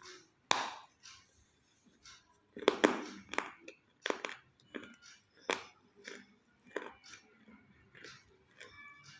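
A person biting and chewing crunchy half-roasted red clay, close to the microphone: irregular sharp crunches about every second, the loudest a little under 3 seconds in.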